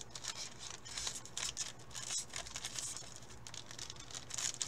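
Crinkling and tearing of a trading card pack's plastic foil wrapper as it is handled and opened, with irregular high-pitched crackles.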